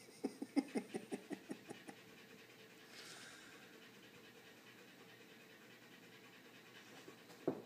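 Siberian husky panting, a quick even run of about ten breaths in the first second and a half, then one sharp knock near the end.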